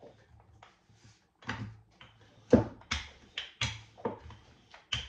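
Wooden rolling pin working dough on a floured countertop: a run of uneven knocks and thuds as it rolls and bumps against the worktop, beginning about a second and a half in and coming two or three a second.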